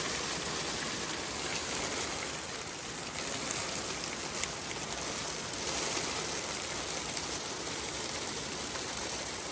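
Heavy rain mixed with hail coming down: a steady dense hiss with a few faint sharp ticks.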